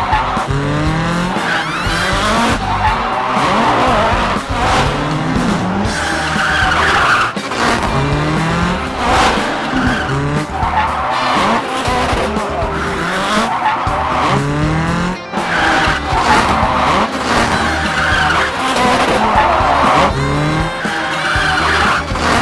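Kyosho Mini-Z MA-030 EVO RC car's 8500KV electric motor whining up and down in short bursts of throttle every second or two while its tyres slide and hiss over the tile floor. Music plays underneath.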